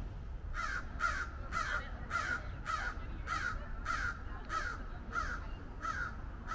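A bird giving a long, evenly spaced series of short, harsh calls, about two a second, starting about half a second in.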